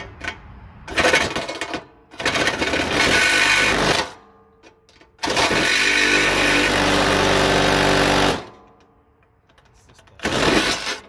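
Milwaukee M12 FUEL Hackzall cordless reciprocating saw cutting into a riding mower's hood, run in four bursts, the longest about three seconds.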